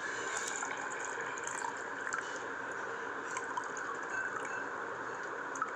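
Water poured in a steady stream from a glass into an empty plastic glass, filling it.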